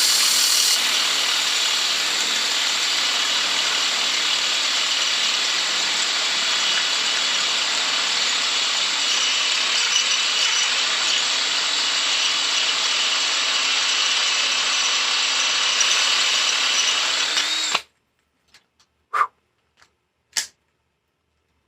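Handheld power tool running steadily as it cuts metal, removing a couple of millimetres of material. It stops abruptly about 18 seconds in, followed by a few faint clicks.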